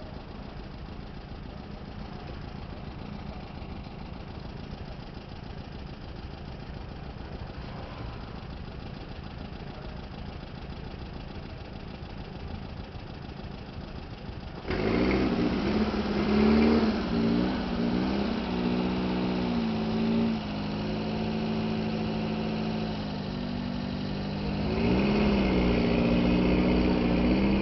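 Vehicle engine running steadily at low revs. About halfway through it gets suddenly louder as the vehicle pulls away, its pitch rising, holding and dropping several times as it goes through the gears.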